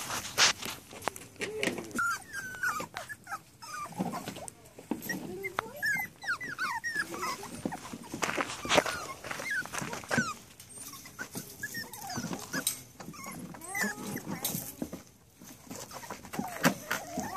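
Rat terrier puppies whining and yipping over and over in short, rising and falling cries, with scattered clicks between them.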